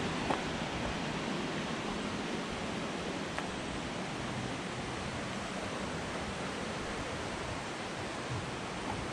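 Steady rushing of flowing water, with a couple of faint ticks about a third of a second in and again about three seconds later.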